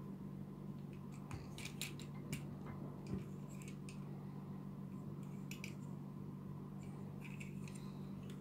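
Scattered sharp clicks and snaps of plastic parts as a Papa Toys PPT-02 fire-engine transforming robot figure is moved and folded by hand, over a steady low hum.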